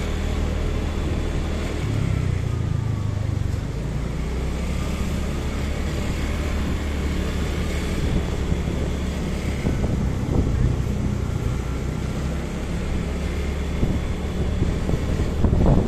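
Motorcycle running while being ridden, a steady low engine hum with wind noise on the microphone.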